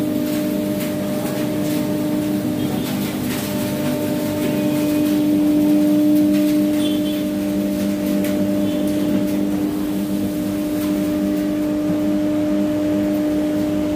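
Spindle of a CNC wood-carving router running with a steady whine, with a few faint clicks.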